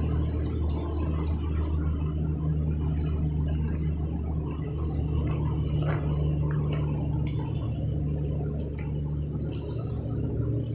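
Steady rushing and gurgling of river water, with a constant low hum beneath it. A few faint bird chirps come in the first couple of seconds.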